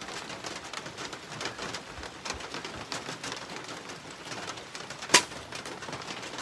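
A single shot from a Vulcan 3 PCP air rifle, one sharp crack about five seconds in. Faint bird calls sound in the background.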